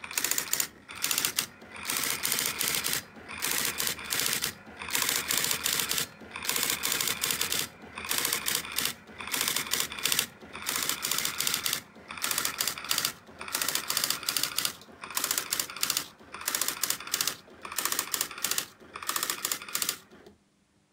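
Olympia ES 100 electronic typewriter printing a disassembly listing line by line: a fast run of type strikes for each line, with short pauses between lines. It stops shortly before the end.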